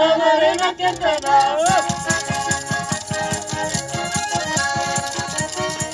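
Folk ensemble performing: women's voices sing a held, wavering phrase that slides upward, then button accordions, a frame drum and a rattle take up a quick, even dance beat about two seconds in.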